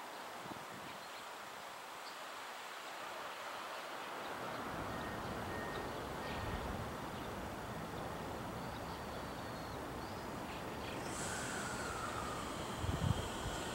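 JR Central 313 series electric train drawing into the station platform, its rumble on the rails growing louder from about four seconds in. Near the end a high squeal comes in as it slows, with a few low thumps just before the end.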